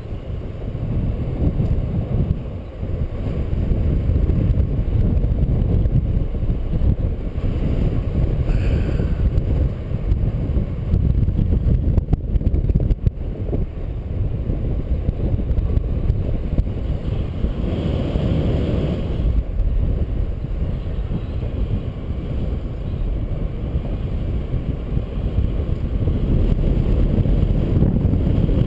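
Wind buffeting the microphone of a camera carried on a paraglider in flight: a continuous low rumble that rises and falls.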